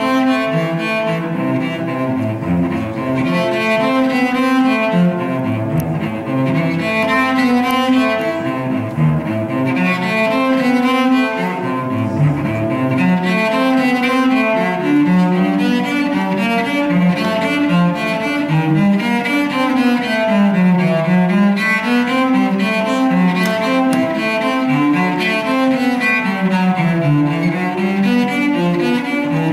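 Cello bowed in a running passage of quick notes, with a run that falls and climbs back up about two-thirds of the way through.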